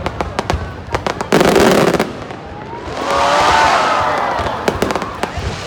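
Aerial fireworks bursting overhead: repeated sharp bangs and crackles, with a loud dense hiss-and-crackle about a second and a half in. A loud rising-then-falling tone sounds about three seconds in.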